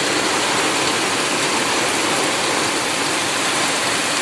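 Heavy storm rain pouring down, a steady dense hiss of water.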